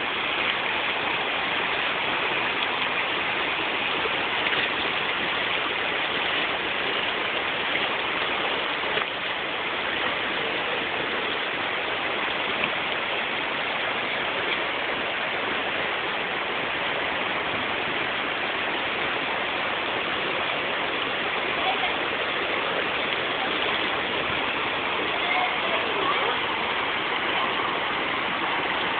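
North Fork of the Virgin River rushing over a shallow, rocky bed: a steady, even rush of flowing water.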